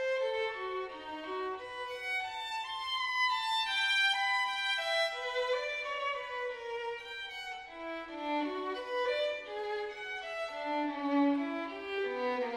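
Background music: a violin playing a flowing melody of stepping notes.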